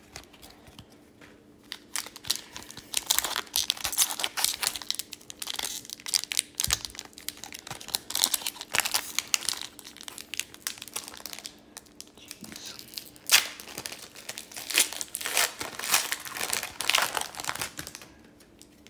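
Upper Deck Series 2 hockey card pack wrapper being torn open and crinkled by hand, a long run of irregular crackles and rustles.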